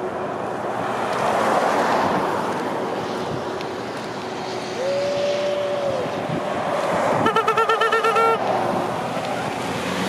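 Steady rushing noise of wind and highway traffic that swells and fades. Around five seconds in a single held tone sounds for about a second, and a couple of seconds later comes a louder, fast warbling tone pulsing about ten times a second for about a second.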